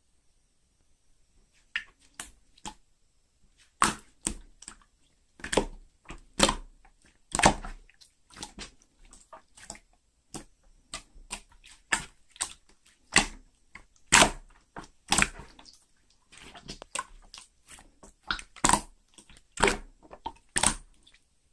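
Clear slime being squeezed and pressed by hand, giving an irregular run of sharp wet clicks and pops, one or two a second, with short quiet gaps between them.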